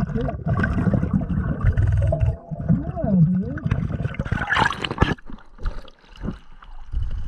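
Muffled underwater sound of a diver working the lake bottom: a low bubbling rumble with a wavering, swooping hum, then a short rush of splashing water about four and a half seconds in as the camera breaks the surface.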